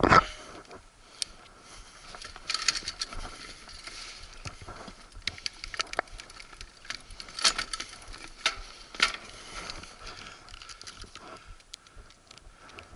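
A loud rush of riding noise cuts off right at the start. Then come faint, scattered crunches and clicks, like footsteps on dry dirt and brush, with a faint steady tone underneath.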